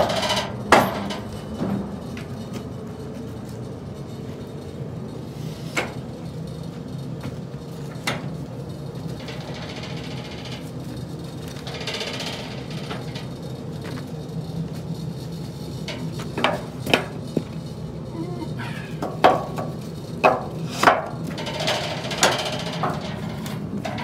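Metal clanks and knocks as a log is clamped onto the bed of a homemade bandsaw sawmill with a lever clamp, a scattered few early on and a quick run of them in the last several seconds, over a steady low hum.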